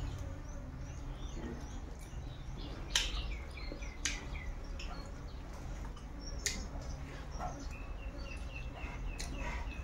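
Close-up eating by hand: chewing with a few sharp mouth clicks, the loudest about three and four seconds in and again after six seconds, over a low steady hum. Runs of short high chirps sound in the background.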